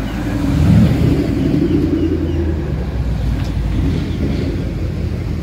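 Ford Mustang engine and exhaust as the car drives slowly past, swelling to its loudest about a second in, then settling into a low, steady drone.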